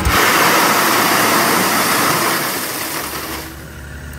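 Gravel pouring from an excavator bucket into a small pickup's bed, a loud rushing rattle that tapers off about three and a half seconds in. A low engine hum is left underneath.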